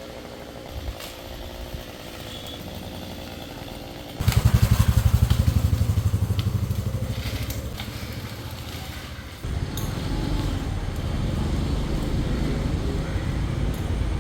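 Two-stroke chainsaw starting suddenly about four seconds in and running with a rapid, even pulsing that fades. About nine seconds in it settles into a steadier, louder run.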